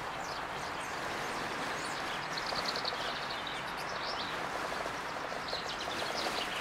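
Woodland ambience: a steady hiss with faint, high chirping bird calls coming in short clusters, about two seconds in and again near the end.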